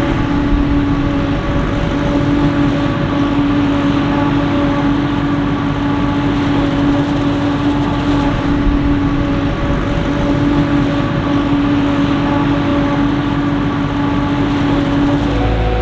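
Heavy maize-harvesting machinery (forage harvester and tractors) running steadily at working speed: a low rumble with a constant whine on top.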